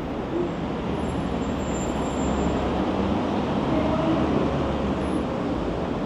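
Steady city street traffic noise with a low rumble of passing vehicles.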